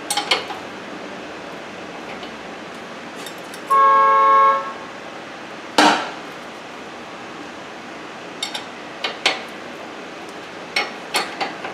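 Metal hand tools clinking and knocking on a car's front steering knuckle and suspension bolts as they are fitted and tightened. A sharp metallic clank comes about six seconds in, and a few lighter clicks come near the end. A short, loud, steady pitched tone sounds for under a second about four seconds in.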